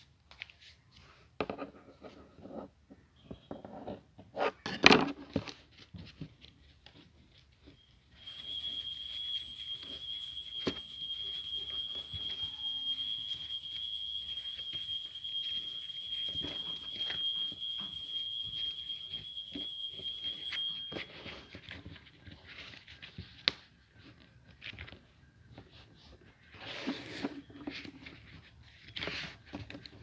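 Paper being folded and creased by hand: short crinkling rustles and taps. From about eight seconds in until about twenty-one seconds in, a steady high-pitched electronic tone sounds over it, then stops.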